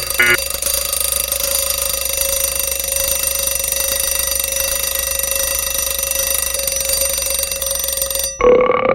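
Electric bell ringing continuously for about eight seconds in a shrill, steady tone, then cutting off suddenly, like an old telephone bell. A brief different sound follows near the end.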